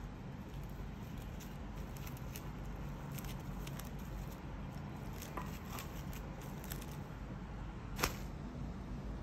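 Plastic cling wrap crinkling as hands smooth and press it tightly around a dorayaki, over a low steady hum. A single sharp tap near the end as a wrapped dorayaki is set down on the counter.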